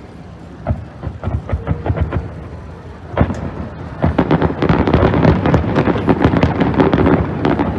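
Fireworks bursting: scattered bangs at first, a big bang about three seconds in, then from about four seconds a dense barrage of rapid bangs and crackling.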